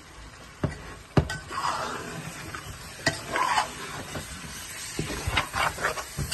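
Food sizzling in a pan as it is stirred, the hiss swelling and easing with each stir, with sharp clinks of a spoon or spatula against the pan about half a second in, just after a second, and several near the end.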